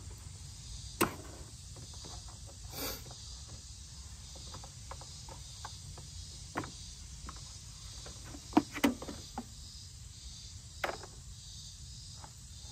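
Scattered clicks, taps and knocks of hands working a riding mower's plastic fuel tank and its fittings loose, with a short scrape about three seconds in and a cluster of sharper knocks near nine seconds. A steady high insect chirring runs underneath.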